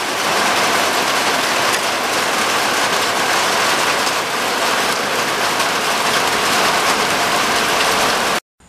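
Heavy rain falling steadily, a loud, even hiss that cuts off suddenly near the end.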